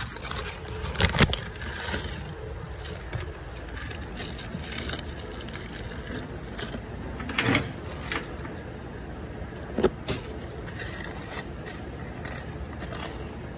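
Handling noise: a few scattered knocks and scraping rustles as the parts and packaging of a power steering hose kit are handled, over a steady background noise. The knocks come about a second in, about halfway through, and twice close together a little later.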